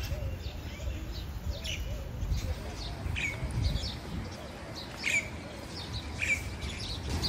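Small birds chirping, short calls scattered throughout, over a steady low rumble.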